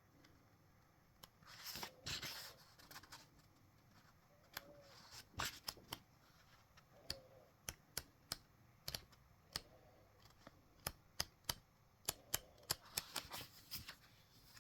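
Paper and card handled by hand: a short rustle about two seconds in, then a long run of sharp, separate clicks and crinkles, thickening near the end.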